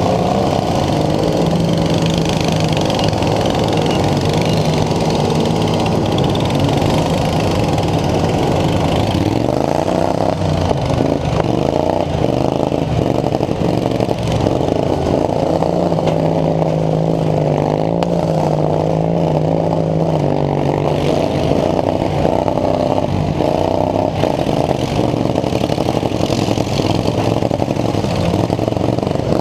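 Racing lawn mower engines running hard and continuously, the pitch rising and falling as the throttle changes, with a rise about ten seconds in.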